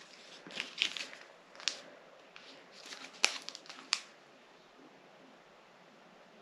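Tea packets being handled: crinkling and rustling with a few sharp taps. It stops about four seconds in.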